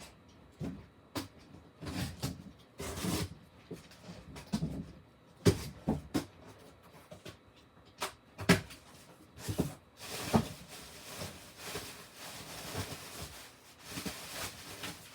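Cardboard boxes and packaging being handled and opened: irregular knocks and clicks, with a stretch of rustling from about ten seconds in.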